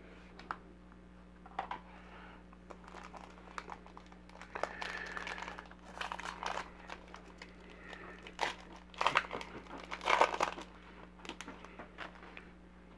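A foil trading-card pack, 2019 Panini Contenders football, being torn open and crinkled by hand, in short crackling bursts that are loudest about two-thirds of the way in.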